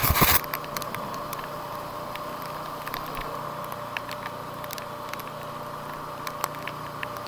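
TVS Apache RTR 200 4V single-cylinder motorcycle running steadily at cruise, heard through a helmet action camera in the rain, with scattered faint ticks of raindrops hitting the camera. A brief loud burst of noise on the microphone at the very start.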